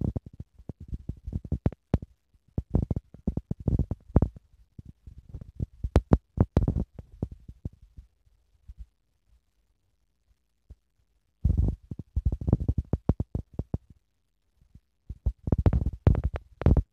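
Irregular close-up thumps and clicks from a tabby kitten playing and pouncing right by the phone, with the phone being jostled. They come in busy bursts with pauses of a few seconds between.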